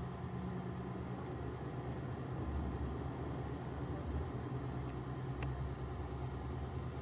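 Cup-turner motor running steadily as it rotates a tumbler: a constant low hum, with a few faint light ticks.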